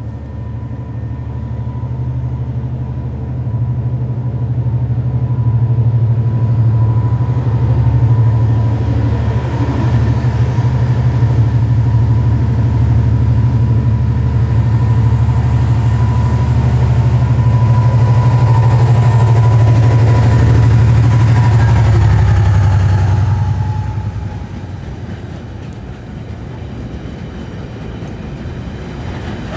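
Irish Rail 071 Class diesel locomotive approaching and passing with its engine running, growing steadily louder to a peak about 20 seconds in. About 24 seconds in the engine sound drops away and the rail-carrying wagons behind it roll past, wheels clattering over the track.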